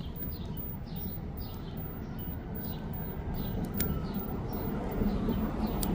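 Outdoor background: a steady low rumble with a small bird chirping over it, short high chirps about twice a second.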